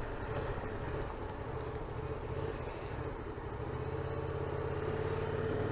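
Yamaha Tracer 700's parallel-twin engine running at steady revs.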